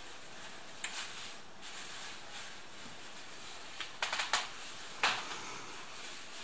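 Steady low hiss with a few scattered sharp clicks and knocks: one pair about a second in, a quick cluster about four seconds in, and the loudest single knock just after five seconds.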